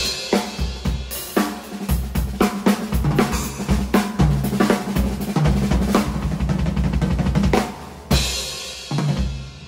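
Acoustic drum kit with Sabian AA and Zildjian K cymbals played in a fast, busy groove of kick drum, snare and hi-hat. It closes with a cymbal crash about eight seconds in and another hit a second later, which ring out and fade.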